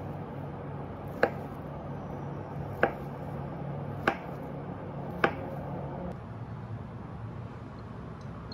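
Kitchen knife blade striking a wooden chopping board four times, about a second apart, as it cuts down through a soft block of canned luncheon meat.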